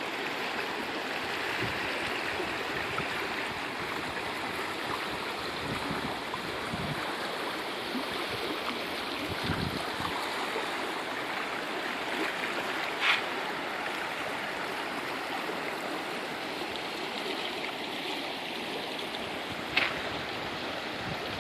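Creek running full with high winter flow: a steady rush of water. Two brief sharper sounds stand out, one about two-thirds of the way in and one near the end.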